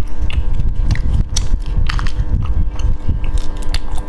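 Sharp, irregular clicks and crackles of cooked sea snail shells being twisted and picked apart in plastic-gloved fingers, over a low rumble close to the microphone.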